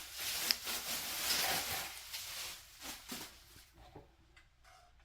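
Rustling and handling of packaging and loose parts, dense for the first two seconds or so, then thinning to a few light clicks and taps.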